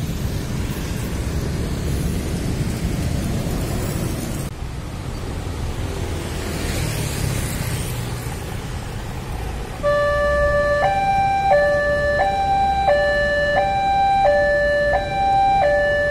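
Railway level-crossing warning siren starting up about ten seconds in: a loud two-tone electronic wail switching between a low and a high pitch about every 0.7 s, signalling an approaching train. Before it starts there is only steady road-traffic rumble.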